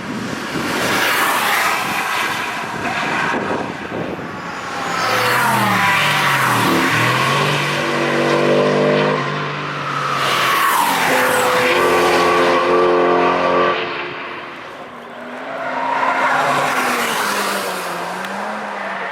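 Cars on a race track passing at speed one after another, about four in all. Each engine is heard under load, and its pitch drops as the car goes by.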